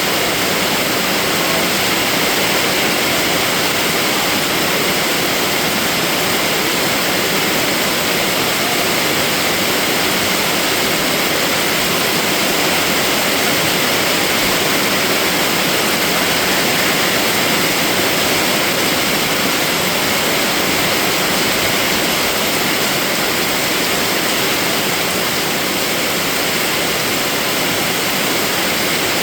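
Steady rain falling, an even, dense hiss that does not change, with no thunder or separate drips standing out.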